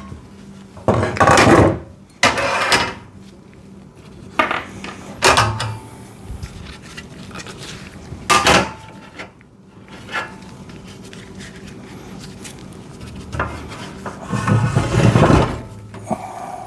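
Steel welding-table parts and hardware being handled during assembly: irregular metallic clanks and rattles, with a longer stretch of rattling and handling near the end.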